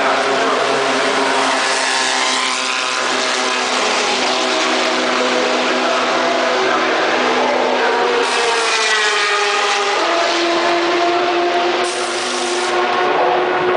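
Race car engines running in the pit lane, several at once. About eight seconds in, one passes with a falling pitch, then a steady engine note holds for a few seconds.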